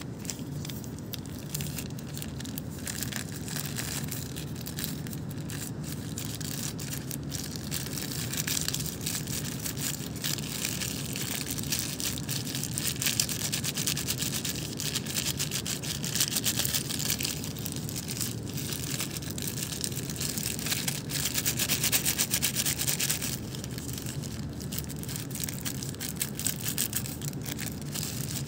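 Thin plastic bag crinkling and crackling as it is squeezed and kneaded by hand to empty out its sauce, busiest through the middle stretch, over a steady low hum.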